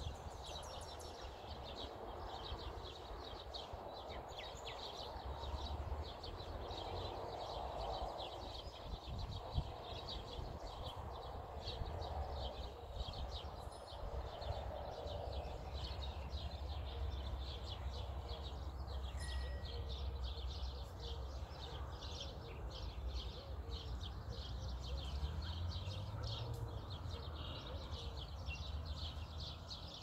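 A chorus of songbirds chirping and twittering in many quick, overlapping high notes, with a steady low rumble underneath.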